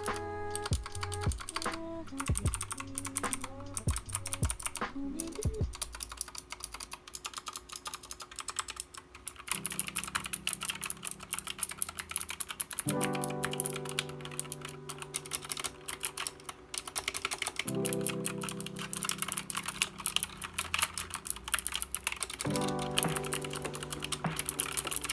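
Fast, continuous typing on a GK61 60% mechanical keyboard: a dense stream of key clicks.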